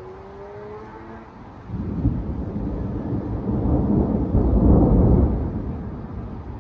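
Thunder: a rumble that breaks in suddenly about two seconds in, swells to its loudest a little after the middle, then dies away near the end.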